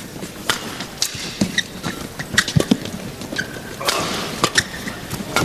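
Badminton rally in men's doubles: rackets striking the shuttlecock in quick, irregular cracks, with short shoe squeaks on the court and a brief swell of crowd noise about four seconds in.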